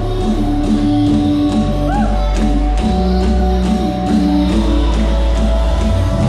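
Worship band music: guitar over held notes and a steady low bass, with a repeating rhythmic pulse.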